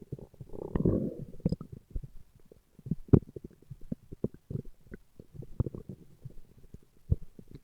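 A man's stomach growling: a longer low rumble about a second in, then a scattered string of short gurgles and pops.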